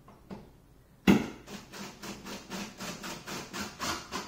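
Hand tool work on a countertop connector screw under a butcher-block counter: one sharp knock about a second in, then a steady rhythm of short strokes, about four a second.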